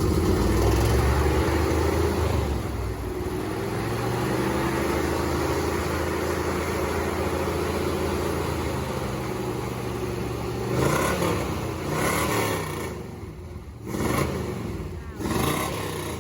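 1985 Chevrolet C10 pickup's engine running just after being fired up, at a fast idle that settles lower over the first few seconds. From about eleven seconds in it is revved several times, the pitch rising and falling with each blip.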